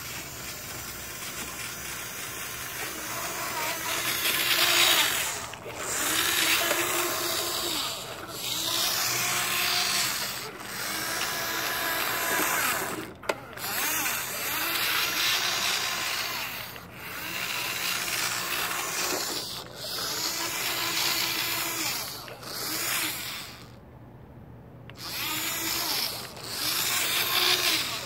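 RC toy truck's electric motor and gears whirring in repeated runs of about two seconds as the throttle is worked, the pitch rising and falling with each run, with tyres grinding on gritty asphalt. A single sharp click comes about halfway through, and there is a brief lull a few seconds before the end.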